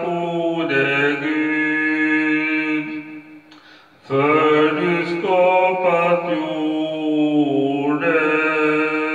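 A man singing a slow praise song in Swedish into a handheld microphone, holding long notes, with a break of about a second, three seconds in, before he sings on.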